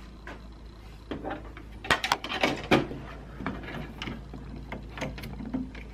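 Hard plastic clicks and taps from fitting a guide tube into a 3D printer's extruder module, with a cluster of sharp clicks about two to three seconds in and lighter ticks after, over a faint steady low hum.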